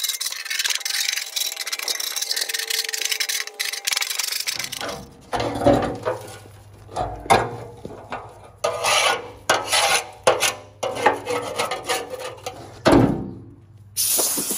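Hand scraper scraping caked grass clippings and dirt off the underside of a rusty steel mower deck: a steady rasping for about four seconds, then separate short scrapes broken by a few knocks.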